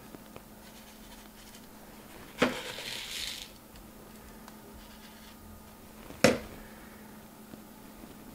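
Small clay bonsai pot filled with granular substrate knocked twice, about four seconds apart. The first knock is followed by about a second of gritty rustling as the substrate grains settle; the second knock is the louder.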